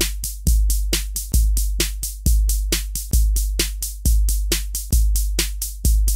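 Electronic drum-machine beat: a deep bass kick a little more than once a second, with quicker sharp ticks between the kicks.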